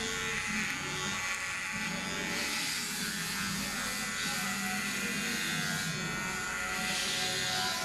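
Electric hair clippers buzzing steadily while being run over the scalp, shaving a head down to the skin.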